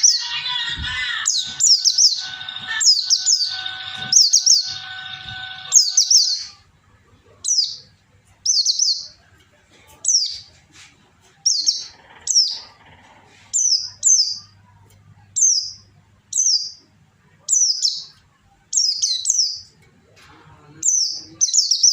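Kiriwik bird calling: short, high chirps that sweep downward, repeated about once a second and sometimes doubled. For the first six seconds they sit over a denser background layer with steady tones, which then stops.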